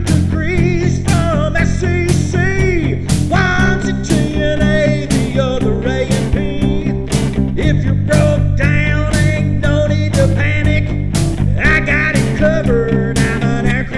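Blues-rock music: a bending electric guitar lead over bass and a steady drum beat, about two beats a second.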